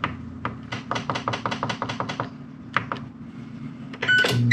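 Rapid clicking from the Ninja SFP701 Combi multicooker's control panel as the cook time is set, several clicks a second for about three seconds. Near the end the start button is pressed: a beep, then the cooker's low steady running hum starts up.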